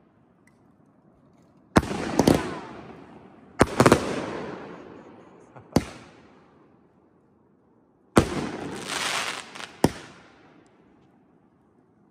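Aerial firework shells from a consumer cake bursting overhead. About two seconds in, sharp bangs start coming one after another, each trailing off in a long echo. Around eight seconds in comes a longer, noisy burst, followed by one more bang.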